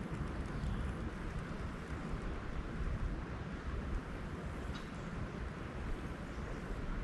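Wind buffeting the microphone: a steady low rumble with a light hiss above it and no distinct events.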